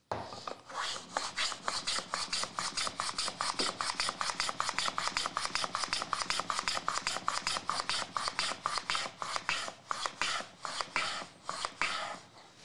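A hand tool worked in rapid back-and-forth strokes on wood, about six strokes a second, steady for most of the time and stopping near the end.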